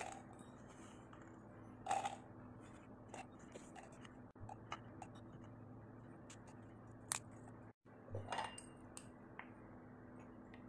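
Small bird's eye chilies dropping into a plastic blender jar: scattered light clicks and taps, with a few louder ones about 2 and 7 seconds in.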